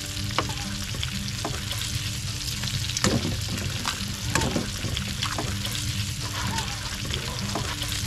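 Food frying and sizzling in a steel pan on a wood stove: venison steaks and eggs in hot grease. Sharp clicks and scrapes of tongs and a metal spatula against the pan come several times as eggs are cracked in and scrambled.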